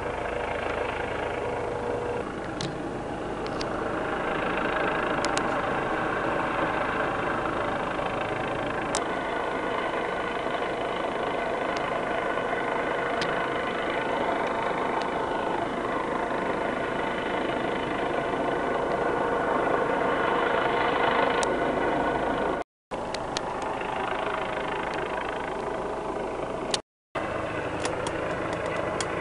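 Helicopter hovering at a distance: a steady engine and rotor drone with a few faint clicks. The sound cuts out briefly twice near the end.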